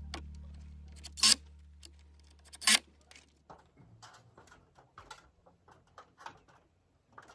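Two loud knocks about a second and a half apart, then a string of light taps and clicks from timber being fitted and handled on a timber-frame awning. Background music fades out at the start.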